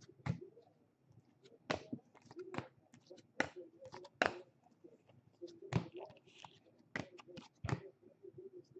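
Trading cards being flipped through by hand, one at a time, each card giving a sharp snap, about eight in all at uneven spacing.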